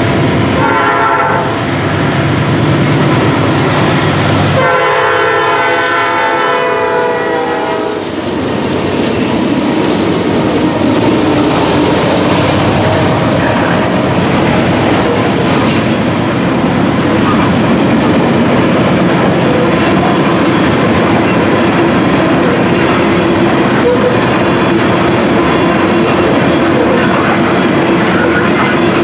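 Nathan P5 air horn on a GE Dash 8-40CW locomotive sounding a short blast and then a longer one, as the train passes close by. Then a long string of covered hopper cars rolls past, their wheels clacking over the rail joints.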